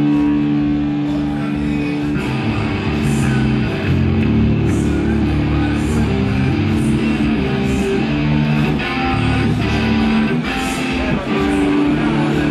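Rock band playing live: electric guitar and bass holding low notes that change every second or so, over drums with a cymbal struck about once a second.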